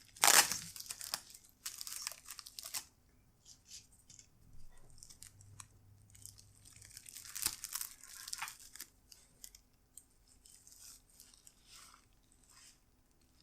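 Packaging being torn open and crinkled while a new laptop replacement screen is unpacked, loudest in the first few seconds and again about halfway through, with scattered quieter crackles between.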